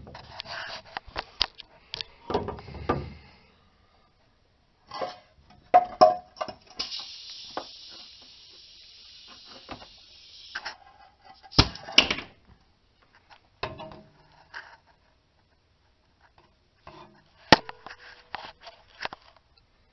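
Metal clicks, knocks and clanks as the ring gear of a failed rear differential is turned and handled by hand, its gear faces torn up and rough, with a steady scraping hiss from about 7 to 10 seconds in and a few sharper knocks later.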